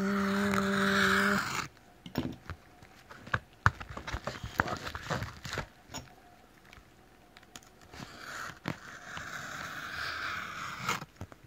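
Fingers picking and scratching at the packing tape and cardboard of a shipping box, with scattered clicks and scrapes and a longer stretch of scraping near the end, as the taped box refuses to open. It begins with a held low hum lasting about a second and a half.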